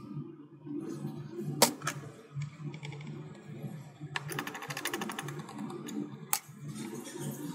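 Two sharp clicks, then a run of rapid ticking lasting about a second and a half, then one more sharp click, over a low steady hum.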